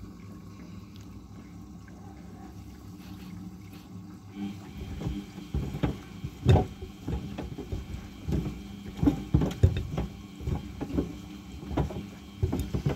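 Old Samsung front-loading washing machine slowly turning its drum with two pairs of sneakers inside while water runs in to fill it, over a steady low hum. From about four and a half seconds in, the wet sneakers tumble and thud irregularly against the drum.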